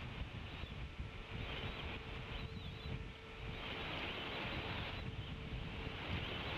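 Wind rumbling on an outdoor microphone, with a steady high hiss and faint high chirps from birds mixed into it.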